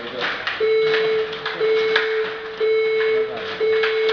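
An electronic beep sounds four times, each about a second long at one steady pitch, one right after another. Under it are the clicks and clatter of a Stiga table hockey game's plastic rods, players and puck.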